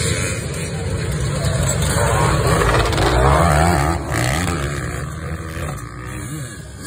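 A pack of off-road dirt bikes accelerating hard off the start line of a cross-country race, engines revving up and down as the riders pull away. About four seconds in the sound drops suddenly, and single bikes rev past.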